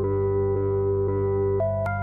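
Ambient synthesizer background music: sustained, drone-like chords that change about one and a half seconds in.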